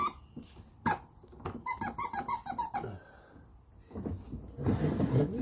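A quick run of high squeaks, about five a second, from a plastic ride-on push car, then a steady rolling noise near the end as its plastic wheels start rolling over wooden deck boards.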